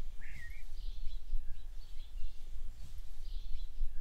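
Outdoor ambience: wind buffeting the microphone with a gusty low rumble, and birds chirping briefly now and then.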